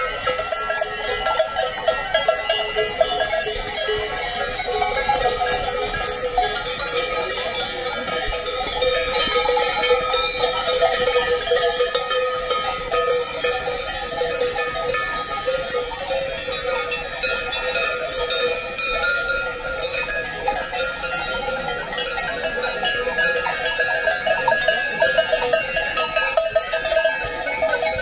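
Cowbells on a herd of cows walking along a road, many clanging at once without pause.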